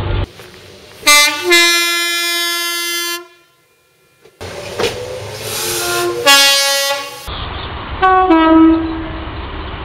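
Train two-tone horns sounded three times in separate recordings, each a higher note dropping to a lower one. The first low note is held about two seconds. A low rumble of the train runs under the second and third.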